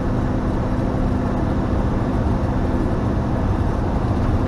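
Camper van driving at a steady speed, heard from inside the cab: a steady engine drone over tyre and road noise.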